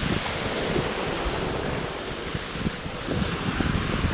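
Sea surf washing through the shallows, with gusts of wind rumbling on the microphone.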